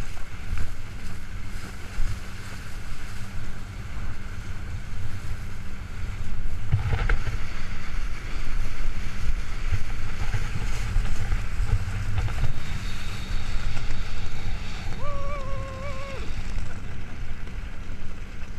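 Motorboat running under way, a steady low engine rumble mixed with rushing wind and water, muffled inside a waterproof camera case. A single sharp thump about seven seconds in, and a brief held high tone about two-thirds of the way through.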